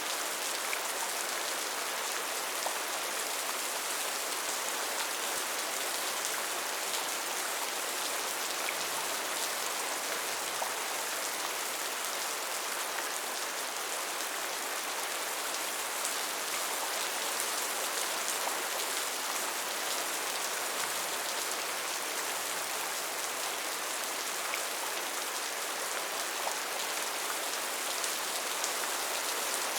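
Steady rain falling, a constant even hiss with many small drop ticks and no change in intensity.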